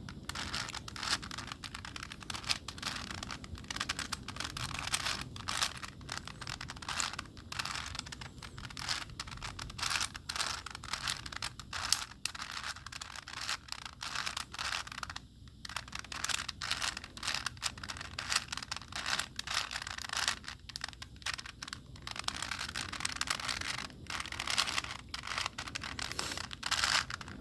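A 4x4x4 Rubik's cube being turned quickly by hand, its plastic layers clicking and scraping in a rapid, continuous run as the moves are made, with a brief pause about halfway through.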